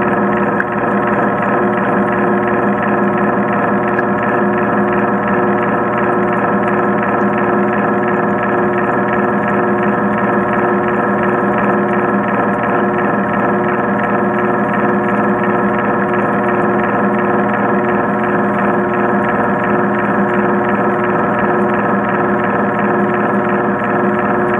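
Counter-current swim machine running steadily, heard underwater as a constant loud hum made of many steady tones over a fine rapid flutter.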